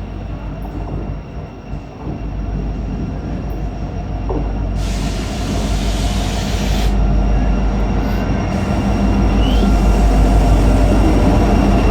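Approaching train, its rumble growing steadily louder, with the eerie knocking sound that the uploader thinks comes from the tracks.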